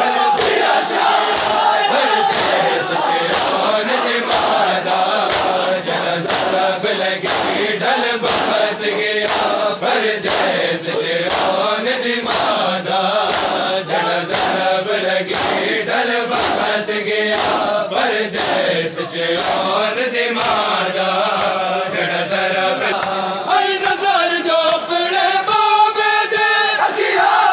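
Crowd of male mourners chanting a noha together, over the rhythmic claps of matam, open palms striking bare chests in unison, about three strokes every two seconds. The voices grow louder near the end.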